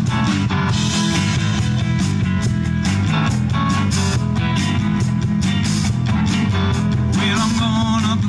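A live rock band playing a song: guitar over bass and drums with a steady beat.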